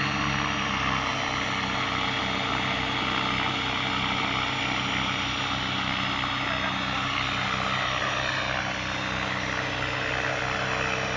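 Three RC helicopters, T-Rex 500, 600 and 700, hovering together: a steady mix of motor whine and rotor blade beat from the several machines.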